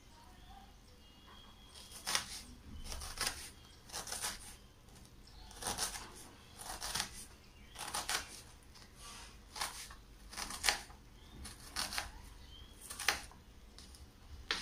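Small paring knife cutting through an onion onto a plastic cutting board, in sharp strokes about once a second, some in quick pairs, starting about two seconds in.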